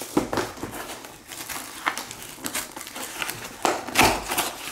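A cardboard shipping box being handled and torn open by hand: rustling, scraping and crinkling of cardboard, with a louder tearing rasp about four seconds in.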